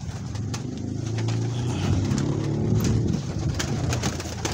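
Domestic pigeons cooing, a low, drawn-out coo lasting about three seconds, with a few faint clicks.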